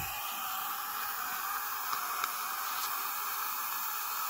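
Steady hiss of dental suction drawing air through a Nola dry-field mouthpiece, with a couple of faint ticks about two seconds in.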